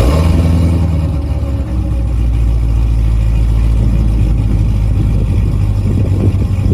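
C6 Corvette ZR1's supercharged 6.2-litre LS9 V8 running, louder and higher for the first second or so, then settling into a steady low idle.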